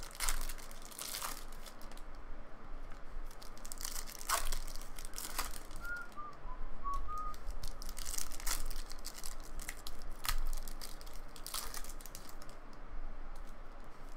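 Trading card pack wrapper being torn open and peeled back by hand, crinkling and tearing in a series of short rustles.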